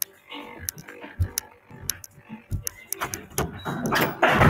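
Handling noise from a device being carried on a video call: scattered clicks, knocks and rustling over muffled background voices, with a louder noisy burst near the end.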